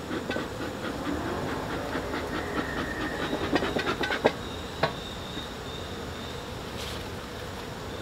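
Bee smoker's bellows pumped in a run of quick hissing puffs over the first few seconds, then a single knock. Honey bees buzz around the open hive throughout.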